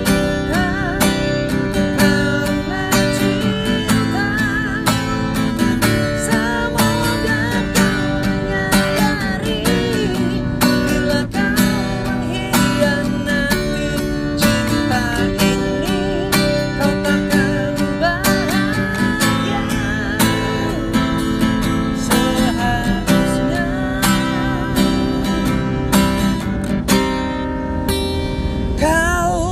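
Acoustic guitar strummed in a steady rhythm, with a man singing along.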